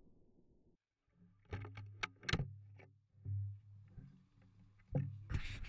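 Handling noise from a shotgun with a camera mounted on its barrel: a few sharp clicks and knocks, one low thump, and a short burst of rustling noise near the end. No shot is fired.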